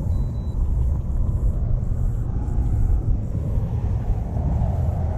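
Steady low rumble of wind buffeting the camera microphone, with no clear pitch.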